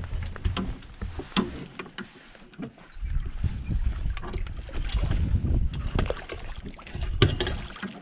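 Fishing boat working gear over the side: scattered knocks and splashes against the hull over a low rumble that comes up about three seconds in.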